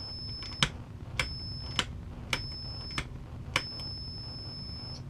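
A repaired toggle safety switch clicked on and off seven times, about every half second with a longer pause before the last click. Each click starts or stops a steady high-pitched tone, so the switch is making and breaking contact cleanly.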